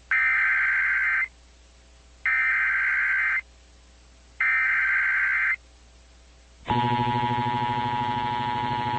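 Emergency Alert System SAME header: three identical bursts of buzzy digital tones, each about a second long with about a second of quiet between them, encoding a flood warning. Near the end the steady two-tone EAS attention signal begins.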